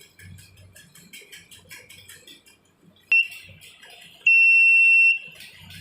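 Buzzer of a homemade infrared-sensor doorbell circuit sounding. A click and short high beep come about three seconds in, then a loud, steady high-pitched tone lasts just under a second. The buzzer sounds when the IR receiver senses an object in front of the sensor.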